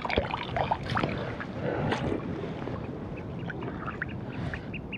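Shallow water splashing and sloshing, with a few knocks, as a small sea trout is landed and handled at the water's edge. From about halfway a rapid, regular run of short high-pitched pips starts up over the lapping water.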